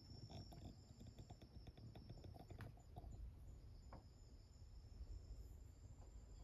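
Near silence: faint room tone with a steady high-pitched whine, and a few soft clicks and rustles during the first few seconds.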